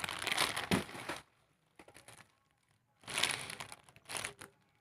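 Crinkling, rustling handling noise as squishy toys are picked up and moved about: one longer stretch in the first second, then two short bursts near the end.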